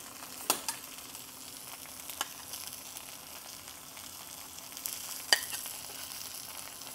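Steak searing in oil in a hot cast iron skillet, a steady frying sizzle, with a few sharp clicks as butter is spooned into the pan, the loudest about five seconds in.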